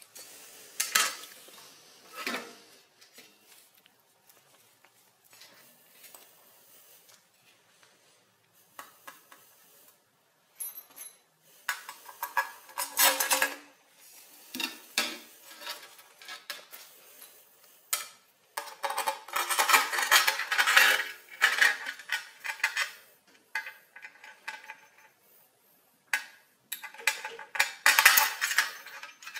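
A flat metal plate and bolts being handled and fitted together, with bursts of clinking, clattering and scraping against a concrete floor and quiet gaps between.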